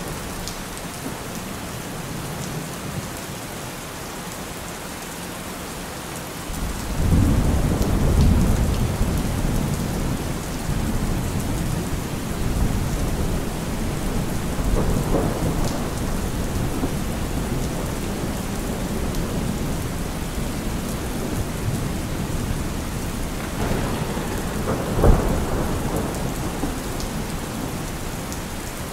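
Steady rain with thunder: a low rumble rolls in about six seconds in and carries on under the rain, with a sharper clap of thunder near the end.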